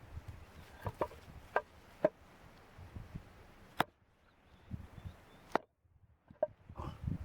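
Wood being chopped or split with a blade: about six sharp, separate knocks at uneven intervals.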